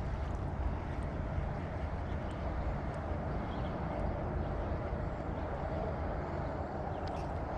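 Steady wind rumble on the microphone over a constant rushing hiss.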